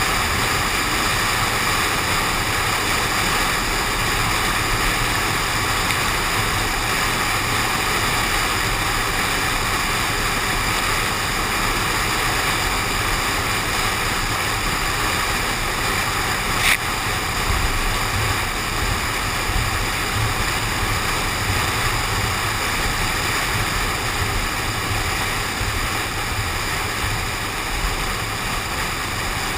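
Steady rushing noise of a car driving in the rain, wind and water spray heard through a camera suction-cupped to the car's window. A single sharp click about 17 seconds in.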